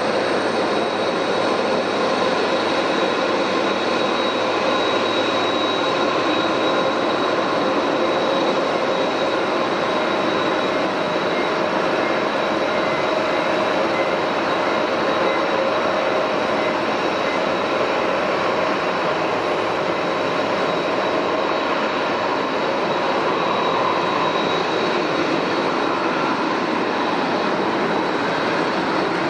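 Jet airliner engines running steadily: a loud, even rushing noise with a thin high whine.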